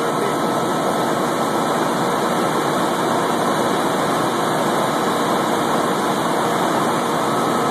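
Helicopter in flight: steady, unbroken engine and rotor noise.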